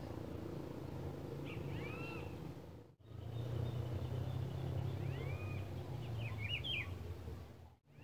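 Rufous-browed peppershrike (pitiguari) singing: two short phrases of arched, whistled notes over a low steady rumble.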